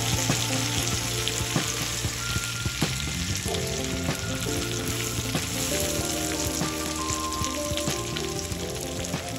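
Beef strips, red onion and green pepper sizzling in oil in a hot nonstick frying pan, a steady hiss, with scattered clicks and scrapes as a silicone spatula stirs them against the pan.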